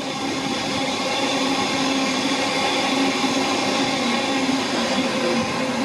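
Queensland Rail electric multiple-unit train moving out past the platform: a steady electric hum with several held tones over the running noise of the wheels on the rails.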